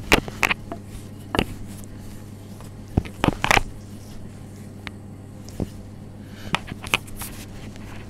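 Wooden rolling pin rolling out brioche dough on a granite worktop, giving scattered irregular knocks and clicks as the pin and hands touch the stone, over a steady low hum.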